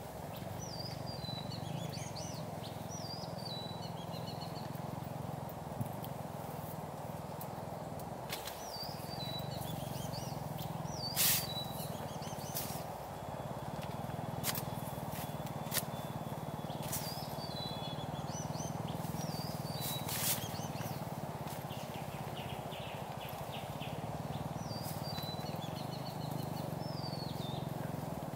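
Birds chirping in short repeated phrases, in several separate bouts, over a steady background hiss, with a few sharp clicks; the loudest click comes about eleven seconds in.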